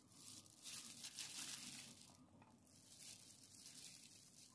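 Faint crinkling and rustling of a thin plastic food-prep glove as the hand lays garnish onto a platter, in short, uneven spells over a steady hiss.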